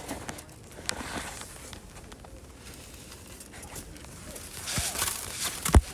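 Footsteps crunching in fresh snow with scattered crackling, and a sharp thump shortly before the end.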